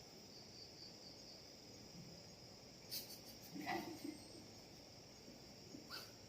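Insects chirring steadily in a high, gently pulsing drone, with a few short clicks and a brief rustle about a third and again near the end.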